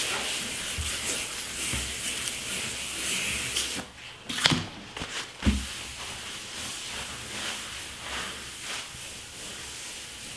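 Hand wet sanding of a polycrylic-finished wooden tabletop with 500-grit sandpaper on a small sanding block: a steady soft hiss of the wet paper rubbing over the finish, taking down its high spots. A couple of light knocks come about halfway through, and the rubbing then goes on more faintly.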